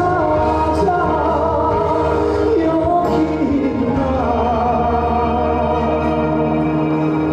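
A male trot singer singing live over an amplified backing track, holding long notes and sliding between them, with a steady bass underneath.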